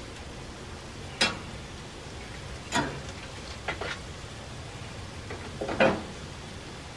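Fish burgers and green vegetables sizzling steadily on a gas grill's griddle plate, with five sharp clinks of metal grill tools against the grill, the loudest near the end.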